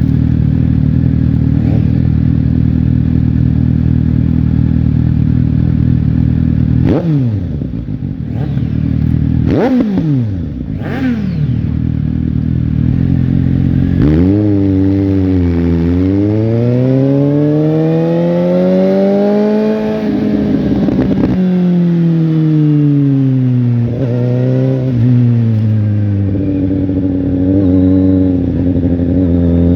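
Suzuki GSX-S750 inline-four engine and exhaust running at a steady note, then three quick throttle blips that rise and fall sharply. About halfway through, the revs climb slowly for several seconds and then drop back, with smaller rises and falls after that.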